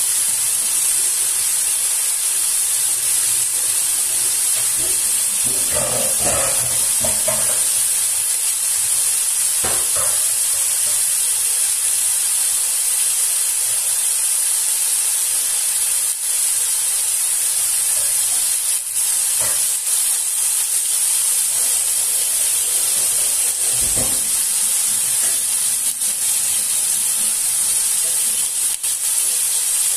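Pot of blue marlin pieces cooking in their own juices on a gas stove, giving a steady high hiss of sizzling and steaming. A few faint knocks come now and then.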